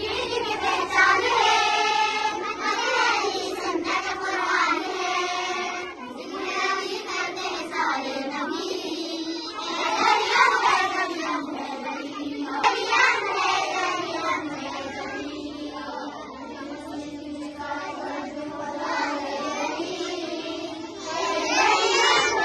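Girls' voices singing a naat, a devotional song in praise of the Prophet, in long, wavering held notes.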